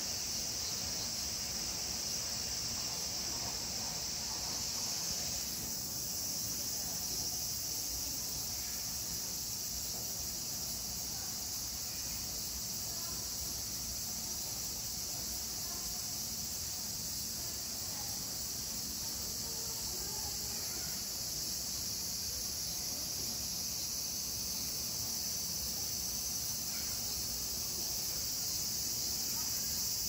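A chorus of cicadas singing: one steady, high-pitched drone.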